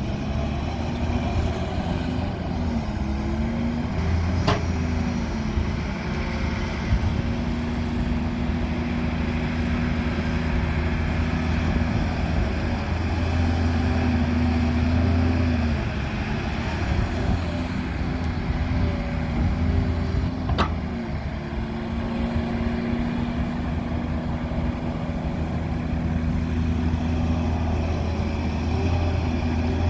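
Diesel engine of an excavator loading mud running steadily, its note swelling and easing as the load on the hydraulics changes, with two sharp knocks, one early and one about two-thirds of the way through.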